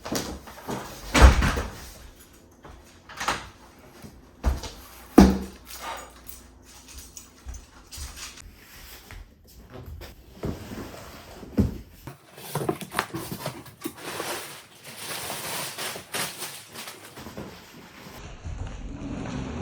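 Unboxing handling noises: a series of knocks and thumps as the packaging is handled and opened, then a few seconds of rustling about two-thirds of the way in.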